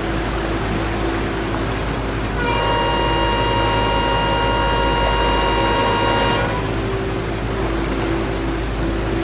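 A single long horn blast, held steady for about four seconds, starting about two and a half seconds in, over a steady low background hum.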